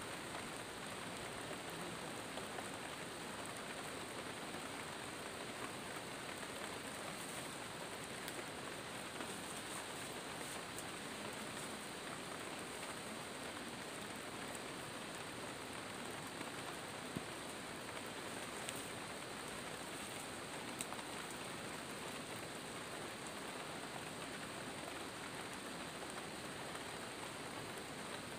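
Steady rain falling, an even continuous hiss with no break.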